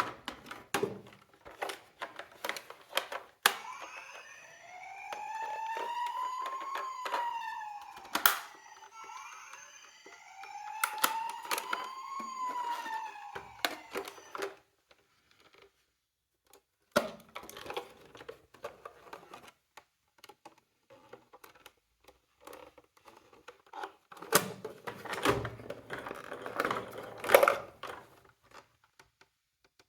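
Electronic siren of a toy miniature emergency vehicle sounding two slow rising-and-falling wails, with sharp clicks and knocks of small toy cars being handled. After the wails stop there is only clattering and knocking of the toy cars, loudest near the end.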